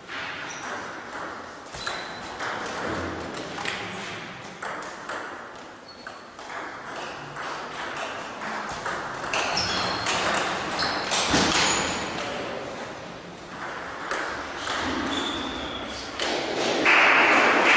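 Table tennis balls clicking off bats and the table in a rally, with more ball hits from neighbouring tables in the hall. A louder burst of crowd noise comes in near the end as the point is won.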